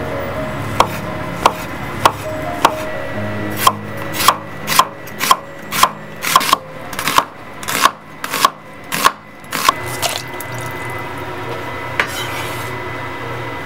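Kitchen knife cutting on a wooden cutting board: a few single cuts through deep-fried tofu, then a steady run of about two chops a second through an onion, stopping about ten seconds in.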